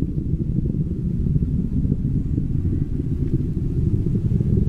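Deep, steady rumble of a Falcon 9 rocket in flight, all low-pitched with no sharp bangs.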